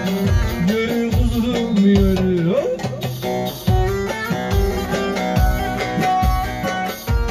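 Amplified Turkish folk music with no singing: a bağlama plucks a busy melody, sliding between notes about two seconds in, over a darbuka beat with a deep stroke roughly every second.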